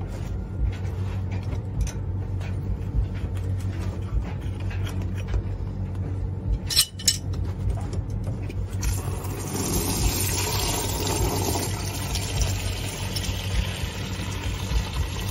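Heating system water running out of the opened drain at the bottom of a magnetic system filter and splashing into a fabric bucket, starting about nine seconds in and running on steadily. A couple of sharp metal clicks come shortly before, over a low steady hum.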